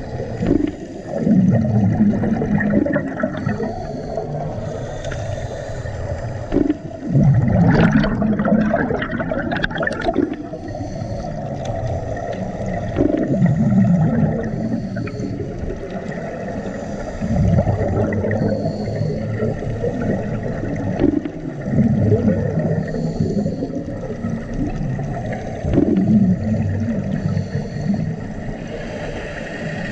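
Scuba diver breathing underwater through a regulator: an exhaled burst of bubbles gurgles every four or five seconds, with quieter hissing breaths in between.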